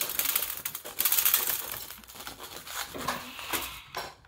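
Dry, papery husk being torn and stripped by hand from a dried popcorn cob: a crackly rustling and tearing, loudest about a second in and dying away near the end.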